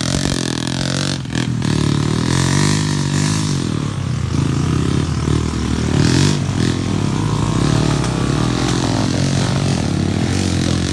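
Enduro dirt bike engine running under load, revving up and down as it is ridden, with a couple of sharp knocks about a second in.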